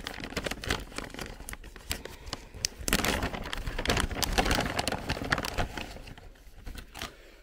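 Plastic dog-treat bag crinkling and rustling as it is handled and opened, busiest around the middle.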